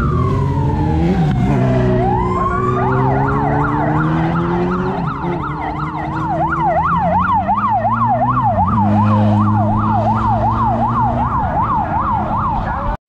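Escort motorcycle siren: a slow wail falls and rises, then switches about three seconds in to a fast yelp of about three cycles a second. A Honda CB1000 motorcycle engine runs underneath, its pitch rising and dropping with the throttle. Both cut off suddenly near the end.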